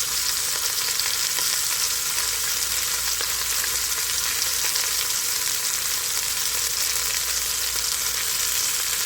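Chicken drumsticks sizzling steadily in hot olive oil in an Instant Pot's inner pot on the sauté setting.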